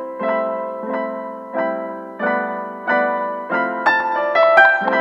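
Background piano music: a chord struck about every two-thirds of a second, each fading before the next, with a quick run of higher notes near the end.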